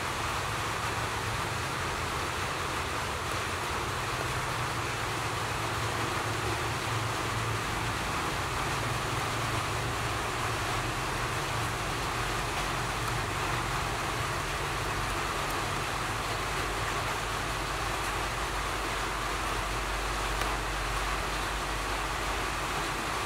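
Steady hiss with a low hum underneath, unchanging throughout.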